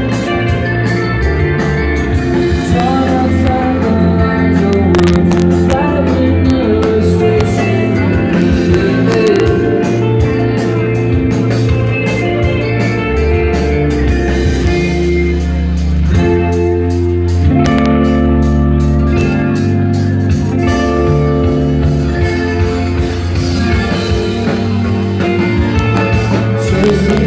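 Rock band playing loudly on stage, with guitars, drums and singing.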